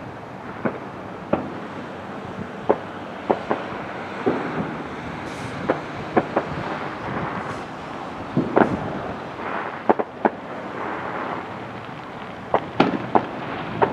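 Distant firecrackers popping at irregular intervals, a dozen or more sharp bangs, some in quick pairs, over a steady background rumble.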